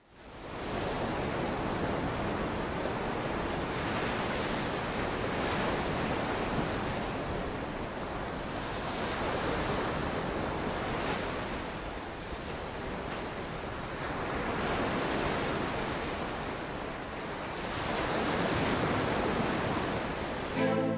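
Rushing, surf-like noise that fades in at the start and swells and ebbs every few seconds, like waves washing on a shore.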